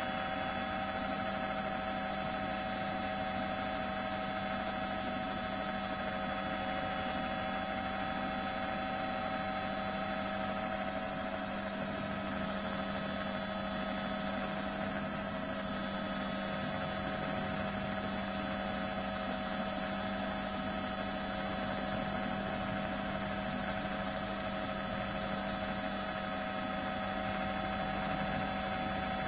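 A steady, unchanging hum: several constant tones over an even hiss, with no change in level.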